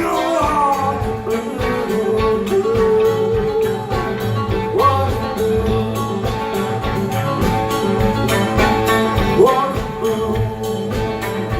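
Live blues band playing: guitar over a steady drum beat, with sliding notes that rise twice, and some singing.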